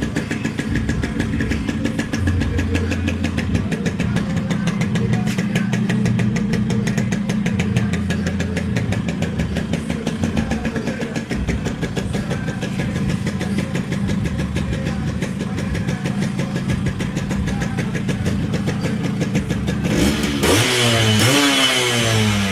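Small two-stroke Yamaha motorcycle engine idling with a slightly uneven beat. About twenty seconds in it is revved hard, and the pitch falls away again at the end.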